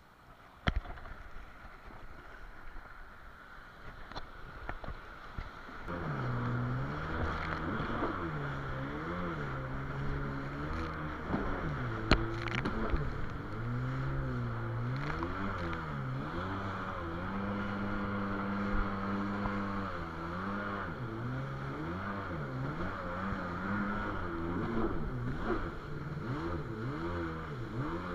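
Yamaha WaveRunner VX700S jet ski engine, quieter at first, then opening up about six seconds in. After that it runs at speed with its pitch rising and falling as the throttle is worked, held steady for a few seconds in the middle, over the hiss of water and spray.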